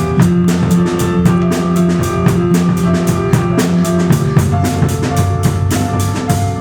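Musical-theatre band playing an instrumental passage: a drum kit keeps a steady beat under held bass and keyboard notes, with no singing.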